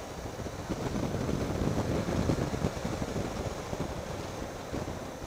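Triumph Tiger 800 XCx's three-cylinder engine running as the bike rides a dirt road, under heavy wind buffeting on the microphone, getting louder for a couple of seconds about a second in.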